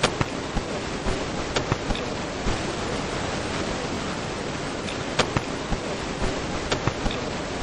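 Steady room hiss in a press-conference room, with about a dozen sharp clicks and light knocks scattered irregularly through it.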